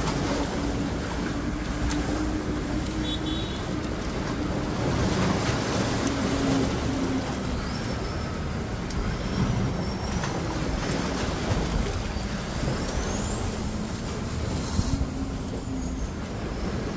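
Steady rushing outdoor noise of wind and surf, with a faint low hum in the first few seconds.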